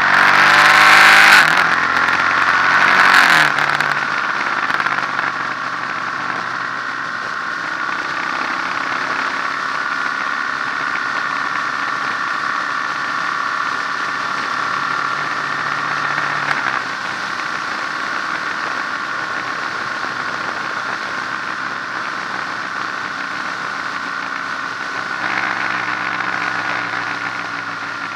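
Motorcycle engine under way, revving up through the gears in the first few seconds with rushing wind, then running steadily at cruising speed; it picks up again near the end.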